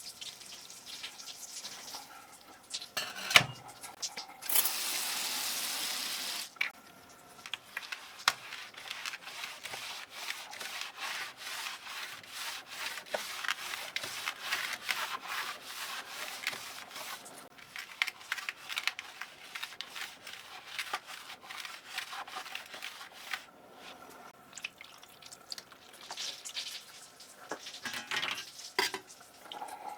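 Scrubbing with a brush during keyboard cleaning: a sharp click, then a steady hiss for about two seconds, then a long run of quick, repeated rubbing strokes.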